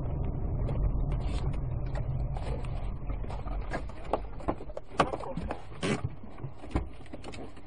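Dashcam recording from inside a car on a gravel road: a low engine and tyre rumble that dies down as the car slows. In the second half, several separate sharp clicks and knocks.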